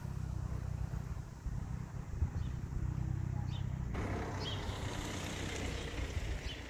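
Street background dominated by the low engine rumble of a car, with a few short high chirps; the sound changes abruptly about four seconds in and turns hissier.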